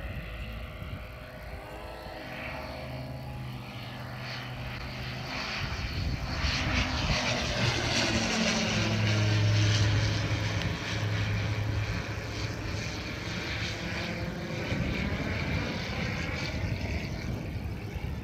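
Single-engine high-wing light aircraft flying low overhead: its engine and propeller drone grows louder as it approaches and peaks as it passes over about ten seconds in. The pitch drops as it passes, and the drone is a little quieter as it moves away.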